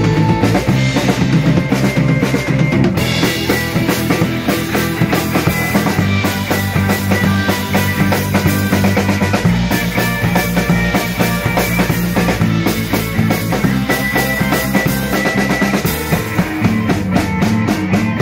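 Live rock band playing: drum kit, electric bass and electric guitars.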